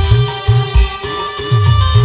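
Timli dance music from an Adivasi band: deep drum strokes in a repeating rhythm, several sliding down in pitch, under a steady held note and a melody.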